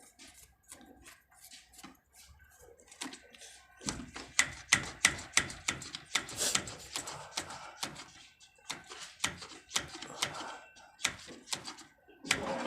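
Quick, irregular clicks and knocks of the hand priming pump on the truck's diesel fuel feed pump being worked by hand to bleed air from the fuel system, with runs of about three strokes a second.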